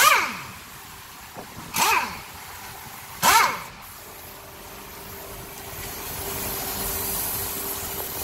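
Short bursts of a power tool with a socket running in flywheel bolts: four brief spins, each dropping in pitch as the motor winds down. The third is about 1.5 seconds after the second, and the last comes right at the end after a pause.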